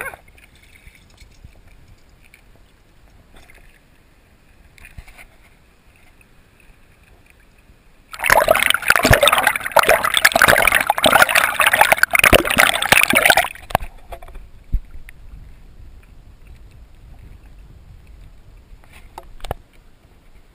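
Sea water gurgling and sloshing around a camera plunged underwater, loud for about five seconds in the middle. Before and after it there is only faint water lapping and a few small knocks.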